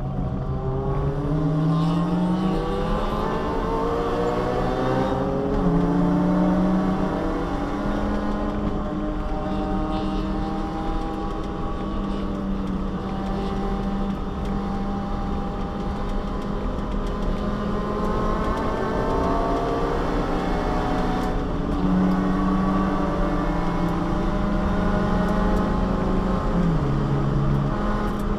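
Subaru Vivio's small four-cylinder engine heard from inside the cabin, running hard at racing pace. The revs climb in long rising sweeps and drop back sharply a few times, as at gear changes or lifts for corners.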